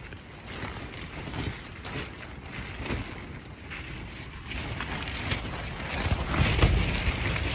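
Strong wind gusting against a tent and shaking its fabric walls, with wind rumbling on the microphone; the gusts build to their strongest about six to seven seconds in.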